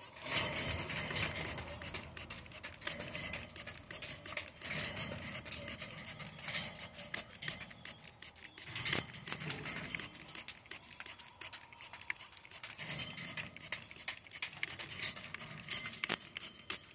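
Water mist spray pattering on a wire birdcage: a steady, dense crackle of small irregular clicks, with a few soft low thuds.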